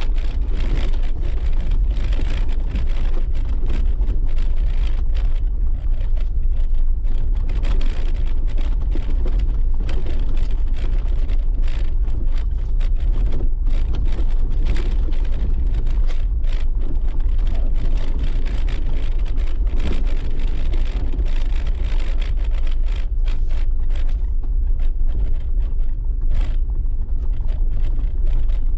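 Jeep driving over a rocky dirt track: a steady low rumble of engine and tyres with frequent rattles and knocks from stones and the bouncing body, busiest near the end.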